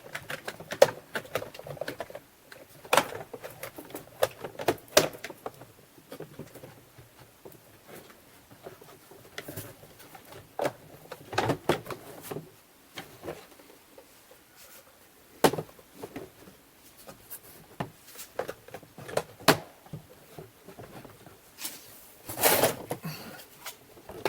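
Scattered clicks, taps and knocks of plastic vacuum-cleaner housing parts being handled and fitted back together, with a louder clatter near the end.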